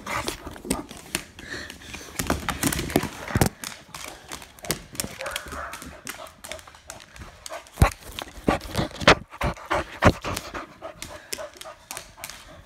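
Dogs panting hard during play, with irregular sharp clicks and knocks throughout, the loudest about eight and nine seconds in.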